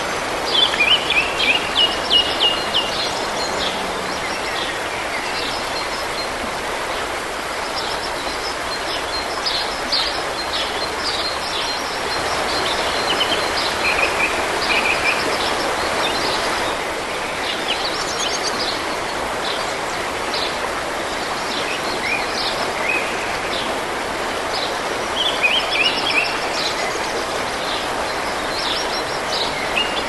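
Shallow stream flowing steadily over stones, with small birds singing in short chirping bursts several times over the top.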